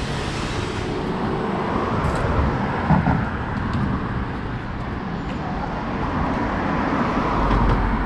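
Traffic on a city street: cars passing close by, one swelling past near the start and another rising to the loudest point near the end with a low rumble. A single brief knock about three seconds in.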